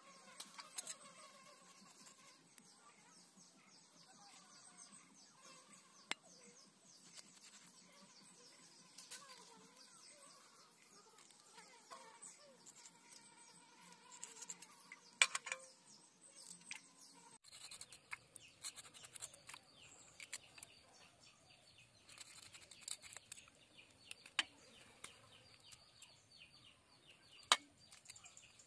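Knife scraping and tapping on river fish laid on a wet stone slab as they are scaled and cut: faint scraping throughout, with a sharp click every few seconds.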